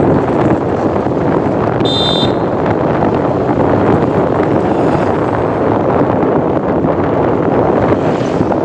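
Steady loud running noise of an Indian passenger train in motion, with a brief high-pitched squeak about two seconds in.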